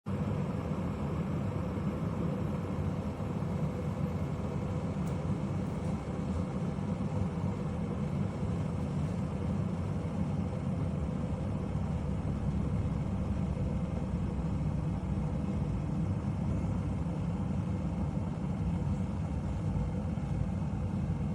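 Chefman glass electric kettle heating water toward the boil: a steady low rumble with a hiss over it.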